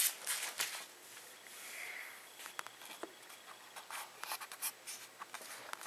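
A sheet of paper being handled close to the microphone: faint, scattered rustles and scratches, with a louder one right at the start.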